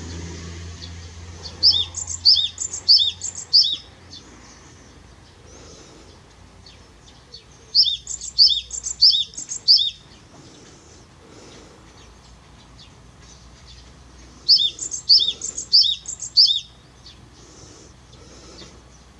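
Japanese tit singing its two-note song: three bouts a few seconds apart, each a quick run of four or five repeated high-then-lower phrases.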